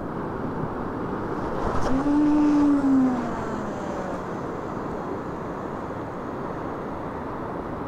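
Steady rushing of surf and wind on the shore. About two seconds in, a short whine rises slightly and then falls away over a second or so; it is the loudest sound.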